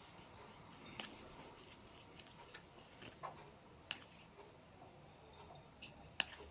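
Quiet room tone with a few faint, scattered clicks and taps, the sharpest about a second in, near four seconds in and near the end.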